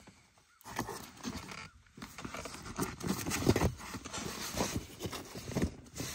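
Irregular light knocks and clatter of hands handling the plastic parts of a car's fuel pump module and its unplugged electrical connector, starting about half a second in.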